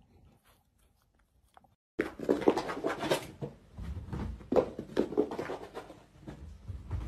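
About two seconds of near silence, then a dog panting and scrambling about, in quick, irregular bursts.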